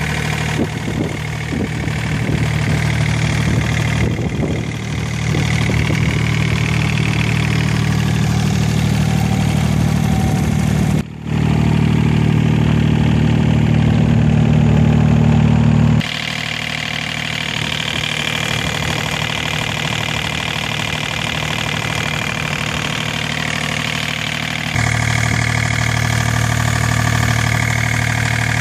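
Komatsu PC35MR-2 mini excavator's diesel engine idling steadily. Its level shifts abruptly a few times.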